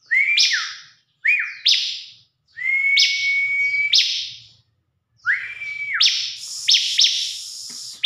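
A pet ciblek (prinia) singing loudly close by, in four bursts. Each burst is a long steady whistled note with sharp upward-sweeping chirps over it, separated by short pauses.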